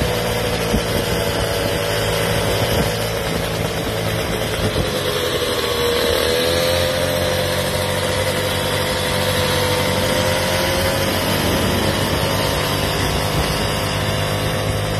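Small engines of stand-up motor scooters running steadily under way, with a brief dip and recovery in engine pitch about five to six seconds in, over a steady rush of air noise.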